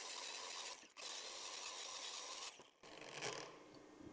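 Cordless angle grinder with a wire wheel brushing a flux-core weld bead on steel plate: a harsh scraping hiss in three passes, broken by two short pauses about a second in and near three seconds in, then fading.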